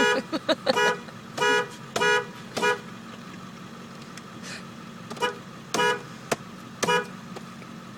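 Diesel truck's horn tooted by a child in about ten short, choppy honks: a quick flurry in the first second, a few more spaced out, a pause, then several more. A steady low hum of the idling engine runs underneath.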